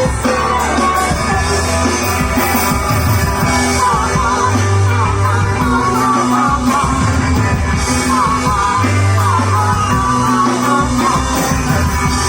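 Live rock band playing a song, a vocalist singing a wavering melody over sustained bass notes.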